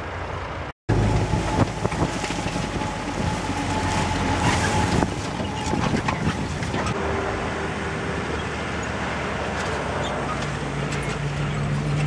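Old military Jeep's engine running as it drives across a harvested rice paddy, heard from on board, with frequent knocks and rattles. The engine tone grows steadier and stronger near the end.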